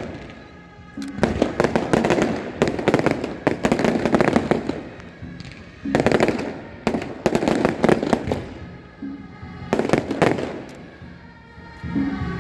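Fireworks going off in rapid crackling volleys, several dense bursts of cracks separated by short lulls.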